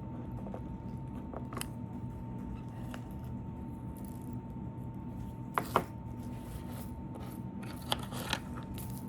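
Slime and kit pieces being handled: a few sharp clicks and crackles, the loudest a double click a little past halfway and two more near the end, over a steady low hum and a faint high whine.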